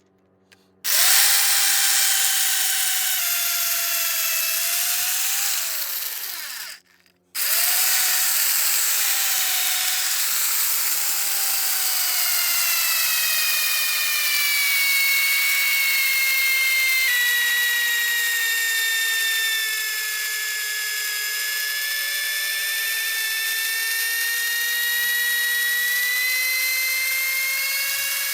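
Power drill boring into a wooden tree stump with a high whine. It starts about a second in, winds down and stops briefly around seven seconds, then starts again and runs steadily to the end. Its pitch sags slowly through the middle and recovers a little near the end.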